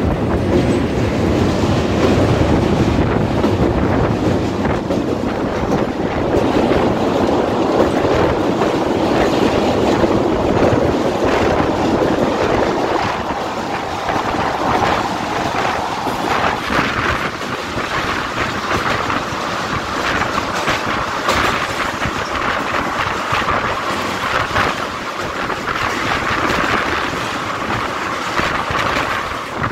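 Rumble of a moving Indian Railways passenger train with wind buffeting the microphone at an open window or door. About halfway through the sound turns brighter and more clattery as the train crosses a bridge.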